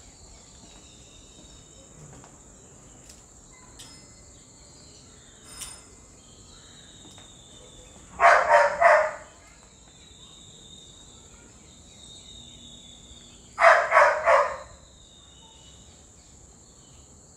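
Knocking on a wooden panelled door: two sets of about three quick knocks, roughly five seconds apart, the loudest sounds here. Under them runs a steady high chirring of crickets.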